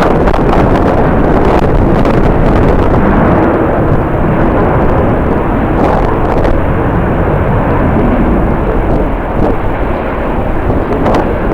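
Strong gusting wind buffeting the microphone: a loud, continuous rumble with irregular crackles as gusts hit.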